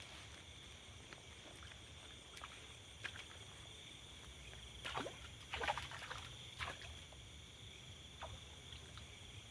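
Steady high-pitched drone of forest insects, with scattered rustles and knocks of handling and movement near water, loudest in a short cluster about five to seven seconds in.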